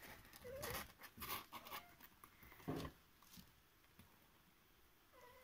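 Faint scratchy rustling and a few light clicks over the first three seconds, then near silence.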